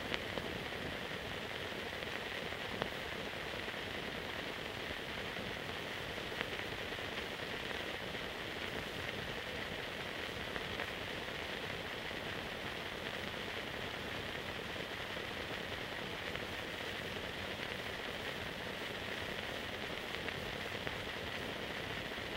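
Steady hiss of a silent film transfer, even and unchanging, with a few faint clicks; no sound from the scene itself.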